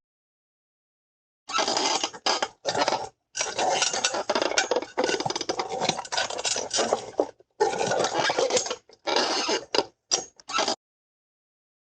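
Clattering and clinking in a series of bursts with short silent gaps, starting about a second and a half in.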